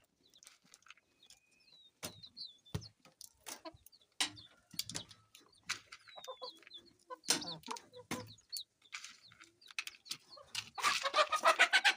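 Chickens clucking while they feed, with a few short high peeps among the calls; the clucking grows louder and busier about a second before the end.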